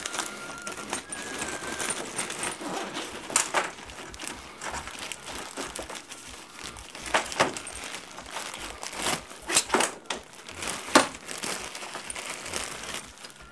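Plastic bags crinkling and rustling as they are handled and opened by hand, with a few sharp clicks and knocks from small parts in between.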